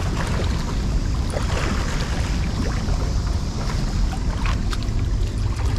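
Steady rush of churning water from a dam spillway outflow, with a heavy low rumble of wind on the microphone and a few faint clicks of handling.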